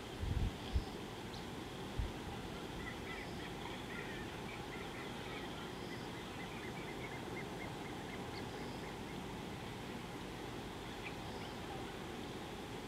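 A bird calling a quick run of short, high chirps for a few seconds, starting about three seconds in, over a steady outdoor hiss; a few low thumps come in the first two seconds.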